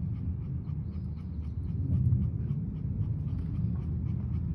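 A dog panting over a steady low rumble.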